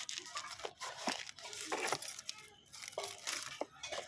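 Smartwatch packaging being torn open and crinkled by hand, in irregular bursts of rustling and tearing.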